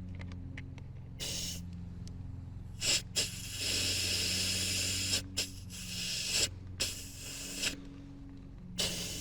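Air hissing in repeated bursts at the MORRflate inflation hoses and tire valves, the longest nearly two seconds about three and a half seconds in, over a steady low hum from the running compressor.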